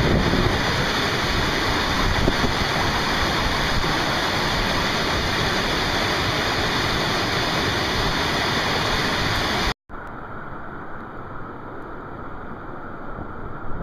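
Whitewater of a mountain torrent cascading, a loud steady rush. About ten seconds in it cuts off abruptly and a quieter, duller rushing takes over.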